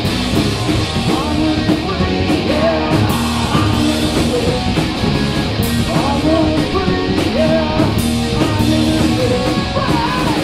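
A heavy metal band playing live, loud: distorted electric guitars, bass guitar and a drum kit, with a melody line bending over the top.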